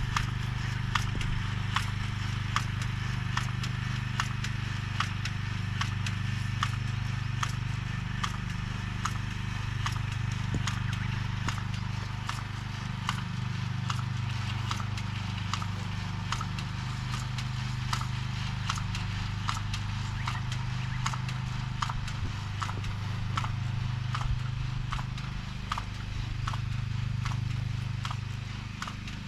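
Small engine of a vegetable transplanter running steadily while planting corn seedlings, with a regular clicking from the planting mechanism about twice a second.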